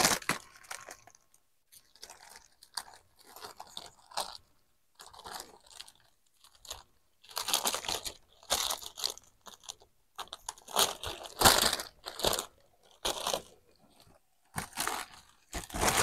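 Stiff laminated plastic wrapping of a parcel being cut and torn away by hand, crinkling and crunching in irregular bursts.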